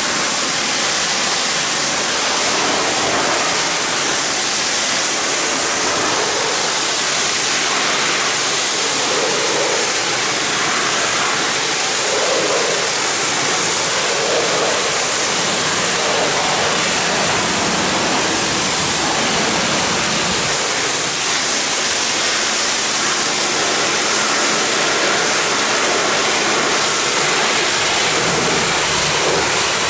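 Pressure washer spraying a steady jet of water, a continuous loud hiss and rush.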